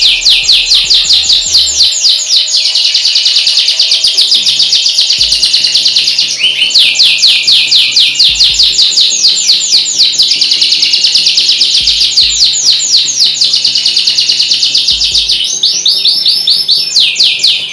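Domestic canary singing a loud, unbroken, very fast trill of rapid falling notes, switching phrase a few times: the non-stop rattling 'konslet' style of canary song. Faint background music runs underneath.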